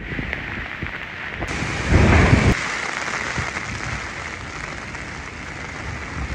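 Heavy typhoon rain pouring down onto pavement and trees, a steady rushing hiss, with a loud louder rush of wind about two seconds in.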